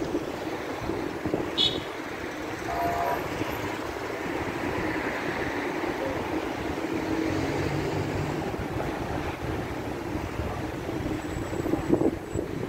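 City street traffic: cars driving past on a multi-lane road, a steady wash of engine and tyre noise, with brief voices of passers-by.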